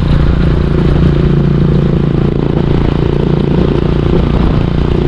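Honda TMX125 Alpha's single-cylinder four-stroke engine running steadily through a stainless aftermarket 'chicken pipe' exhaust while the motorcycle is ridden.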